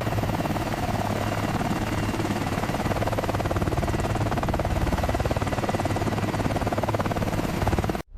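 Helicopter running, a fast, even rotor beat over a steady engine drone; it starts abruptly and cuts off suddenly near the end.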